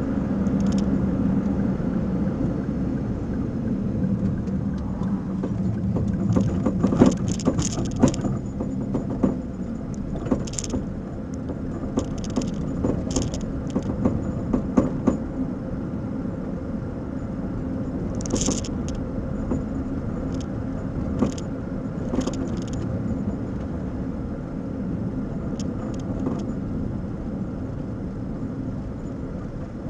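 Car driving with a steady road rumble, broken by irregular clunks and rattles from its coilover suspension, an abnormal noise that points to a fault in the coilovers.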